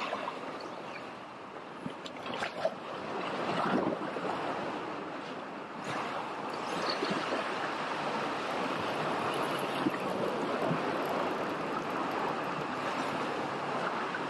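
Sea water washing against a rocky shoreline in a steady rushing wash, with a few short clicks and knocks in the first few seconds.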